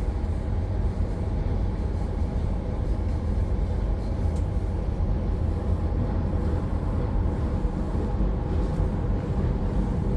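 Passenger train running, a steady low rumble with no sudden events.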